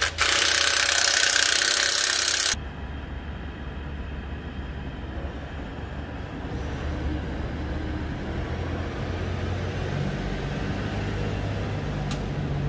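A tractor's diesel engine idles steadily, getting a little louder about ten seconds in. For the first two and a half seconds a loud hiss sounds over it and then cuts off suddenly.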